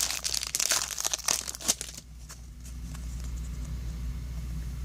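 A trading card pack's wrapper being torn open and crinkled, a dense crackling for about the first two seconds. After that only a low steady hum remains.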